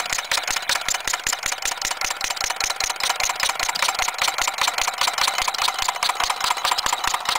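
Small single-cylinder gasoline engine, a replica of Henry Ford's first engine built from iron pipe, running with a fast, even stream of sharp ticks and pops.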